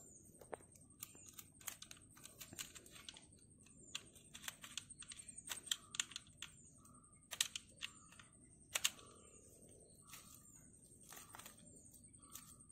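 Utility knife blade slitting the plastic film wrapped around an air layer: faint, irregular clicks and crackles as the film is cut and pulled.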